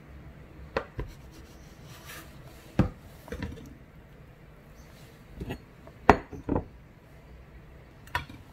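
A kitchen knife cutting through a block of tofu and knocking on a wooden cutting board, with the slices set down into a glass bowl: a scattering of separate sharp knocks and clunks, the loudest about six seconds in.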